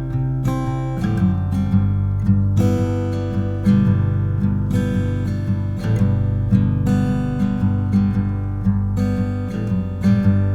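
Background music: a strummed acoustic guitar track with a steady rhythm.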